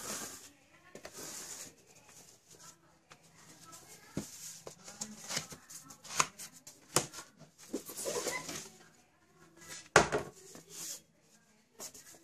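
Cardboard box being handled and opened by hand: rustling and scraping of cardboard with scattered sharp knocks, the loudest about ten seconds in.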